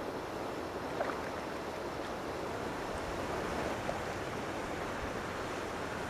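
Steady rushing noise of water and wind on the microphone at a pond's edge, with a short faint high sound about a second in.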